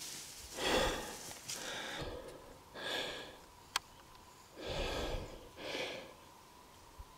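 A person breathing hard, with several loud breaths about a second or so apart, and a single sharp click about halfway through.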